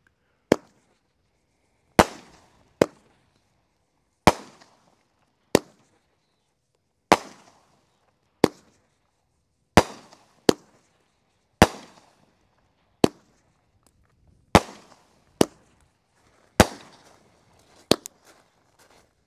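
Consumer firework cake, the '3 Minute Panic', firing angled shots with a flying-fish effect: a steady string of about sixteen sharp bangs, roughly one every second, each trailed by a short fading hiss.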